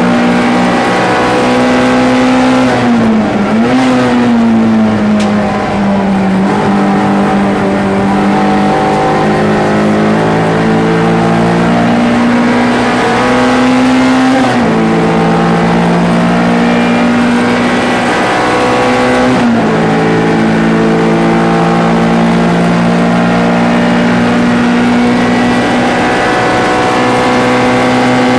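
MG ZR 105 race car's 1.4-litre four-cylinder engine running at high revs under load. Its note dips and recovers about 3 seconds in, and drops abruptly twice, about 15 and 20 seconds in, as it changes up a gear.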